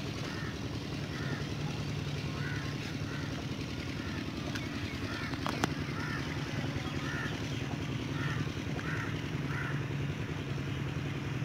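A steady low engine hum with a bird calling over it in short repeated calls, and a single click about halfway through.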